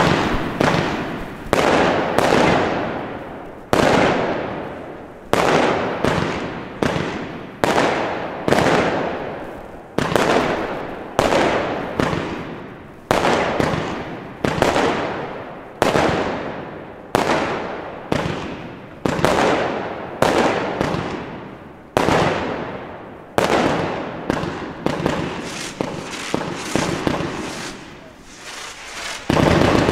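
Weco Pure Magic 135-shot compound fireworks cake firing a steady run of shots, roughly one a second, each launch followed by bursting stars and crackle dying away. A short lull near the end, then the shots pick up again.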